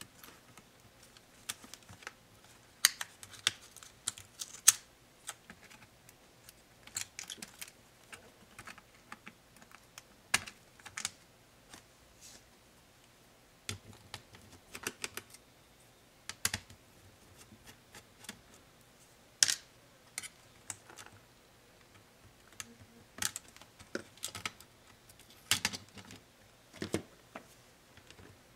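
Irregular small clicks and taps of plastic and metal parts inside an opened HP 250 G5 laptop: ribbon-cable connector latches being worked and the cooling fan being unclipped and lifted off the motherboard.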